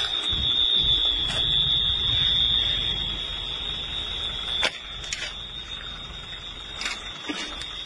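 A steady, high-pitched alarm tone sounding without a break over a low rumble, in blast-damaged surroundings. Near the middle the rumble drops suddenly after a click, and a few more short clicks follow.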